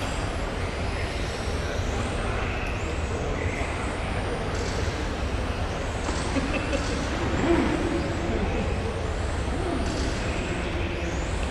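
Electric 1/10-scale RC touring cars racing on a carpet track: high motor and gear whines that rise and fall as the cars accelerate and brake, over the steady low hum of a large hall.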